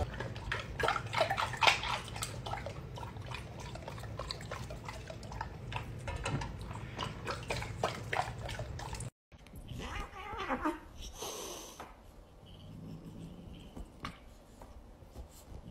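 A golden retriever lapping water from a metal bowl: a fast, continuous run of wet slurps and splashes that cuts off suddenly about nine seconds in. After that come fainter animal sounds as a cat and a small fluffy dog tussle.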